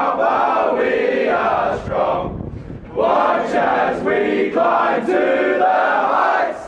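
A group of teenage boys' voices chanting together in unison, in loud shouted phrases with a short break about two and a half seconds in.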